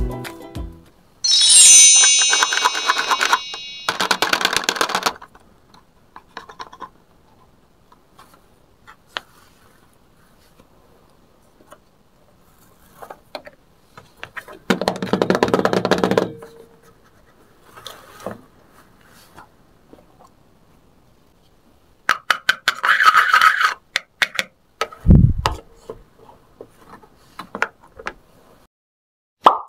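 Plastic toy kitchen pieces being handled and set down: scattered clicks and knocks with a few longer stretches of handling noise, and one low thump near the end. A short bright chime sounds about a second and a half in.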